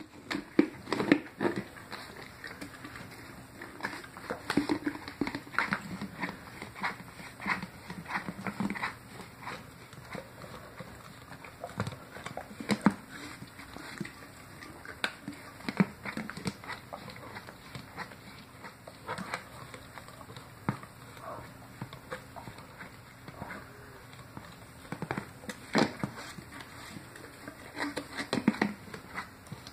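Great Dane licking peanut butter out of a plastic jar: irregular licks and mouth smacks with sharp little clicks, coming in clusters throughout.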